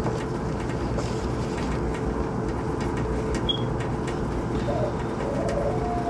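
Steady low hum, with one short, low cooing call about five seconds in.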